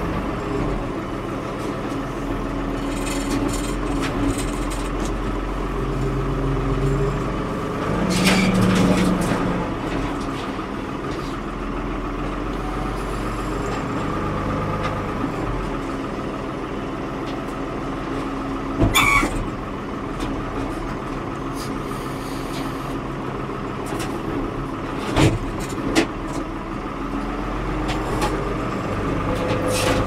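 Ford 550 backhoe's diesel engine running steadily under load while it demolishes a building. It gets louder for a moment about eight seconds in, and there are sharp crashes of breaking sheet metal and timber, one about two-thirds of the way through and two close together near the end.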